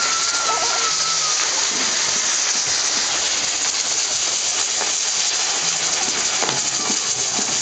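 Fireworks fountains spraying sparks: a steady loud hiss with faint crackles, and a thin whistle falling in pitch that fades out about a second and a half in.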